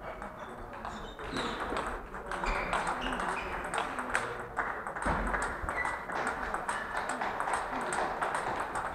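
Table tennis balls clicking off bats and tables at several tables at once, a quick, irregular patter of small clicks, over a low murmur of voices in a large sports hall.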